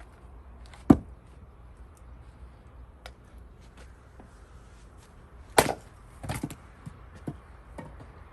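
Axe splitting cherry-wood rounds: a sharp chopping strike about a second in and another about five and a half seconds in, followed by several lighter knocks of wood.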